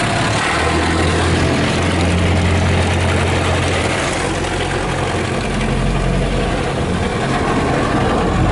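Belanger Saber SL1 automatic car wash spraying a heavy mist of water over the car, a steady hiss heard from inside the car, over a low steady hum.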